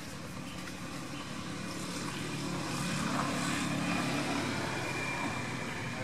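Steady engine hum of a passing motor vehicle or aircraft, swelling to a peak about four seconds in and then easing off.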